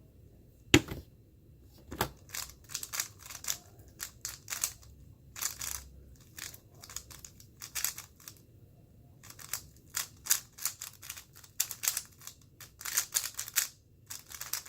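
Moyu Weilong GTS2M 3x3 speedcube turned rapidly during a fast solve: dense runs of plastic clicking and clacking, with one sharp click about a second in and a brief pause in the middle.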